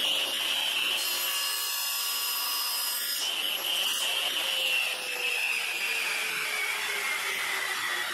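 Table saw running with a high whine as a small wooden part is cut on a crosscut sled, the sawing hiss heaviest about one to three seconds in; the blade's whine then slowly falls in pitch as it winds down.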